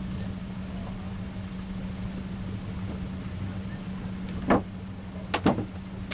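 A 4x4's engine idling with a steady low hum. Three sharp knocks cut through it, one about four and a half seconds in and two close together about a second later.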